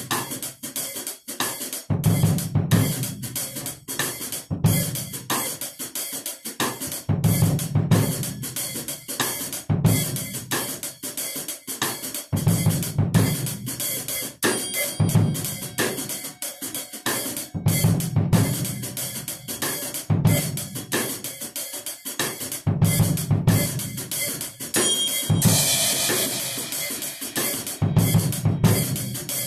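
Acoustic drum kit played as a continuous groove, with bass drum, snare, hi-hat and cymbals. Near the end a cymbal crash rings out for a couple of seconds.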